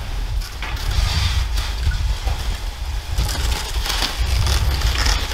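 Snowshoes crunching through deep snow in slow, uneven steps, over a steady low rumble.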